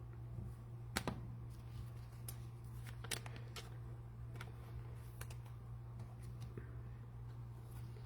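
Scattered light clicks and taps of trading cards being handled and set down on a table, irregular and a second or so apart, the sharpest about a second in. A steady low electrical hum runs underneath.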